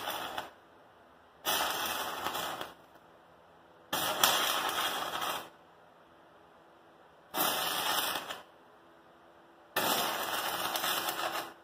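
Stick-welding arc from a 36-volt battery-powered arc welder, struck in short bursts of about a second each, four of them after the tail of an earlier one, each stopping abruptly as the arc is broken: a run of short welds.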